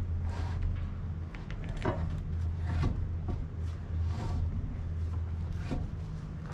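A large log being levered with a cant hook: scattered wooden knocks and short scrapes as the hook bites and the log shifts on the timbers, over a steady low hum.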